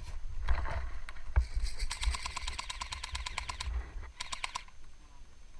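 Airsoft electric gun firing on full auto: a rapid burst of about two seconds at roughly ten to twelve shots a second, then a short second burst about half a second later. A low rumble of wind or handling on the microphone runs underneath.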